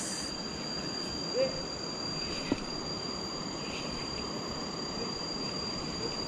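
Steady high-pitched drone of insects in the riverside forest over an even wash of river noise. A short low rising sound about a second and a half in and a sharp click about two and a half seconds in.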